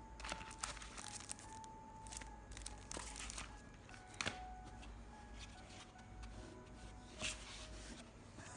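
Album packaging crinkling and rustling as it is handled, in a run of short crackles, the sharpest a little past four seconds and near seven seconds; quiet music plays underneath.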